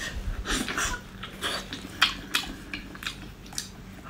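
Close-up mouth sounds of a person biting into and eating a chunk of raw salmon in chili oil: a rapid, irregular string of short clicks and smacks.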